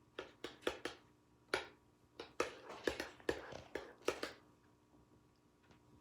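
Homemade slime being mixed in a bowl, with food colouring worked into it: a quick run of short squishing and scraping strokes for about four seconds, then it stops.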